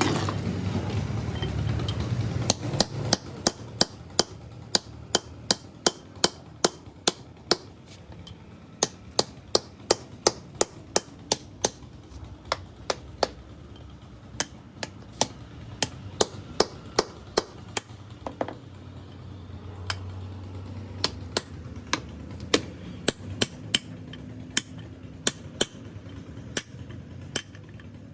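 Hand hammer blows, about two a second, in runs with short pauses, during the repair of a three-phase electric motor. A louder steady noise fills the first two seconds.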